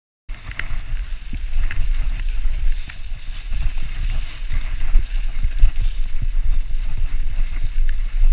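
Low wind buffeting on the microphone and the rumble of a mountain bike rolling over a leaf-covered dirt trail, with a few sharp clicks and rattles from the bike. It starts abruptly after a brief moment of silence.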